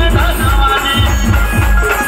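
Loud amplified band music with a heavy bass drum beat, about four beats a second, and a melody line over it.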